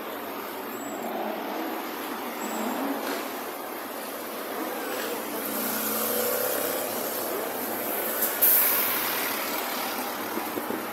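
American cars driving past in street traffic, their engines rising and falling in pitch as they pull away. About eight seconds in there is a sudden loud burst followed by a second of sharp hiss.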